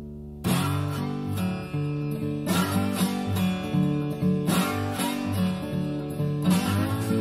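Instrumental opening of a folk-progressive song: a held chord fades out, and about half a second in guitar strumming starts in a steady rhythm.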